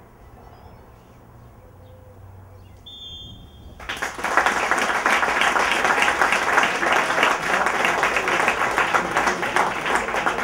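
Near quiet with a brief high whistle about three seconds in, then applause breaks out suddenly and keeps going: the close of a moment of silence before kickoff.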